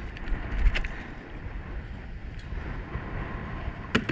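Wind buffeting the microphone over lapping water, with a knock about half a second in and a sharp click near the end from handling gear on the kayak.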